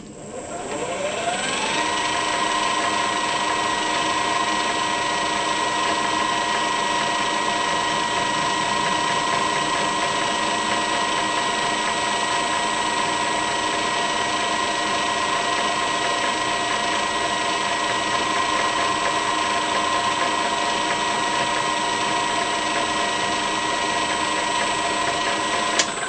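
Metal lathe driven by a variable-frequency drive, spinning up with a rising whine over about two seconds, then running steadily at speed with a high constant whine.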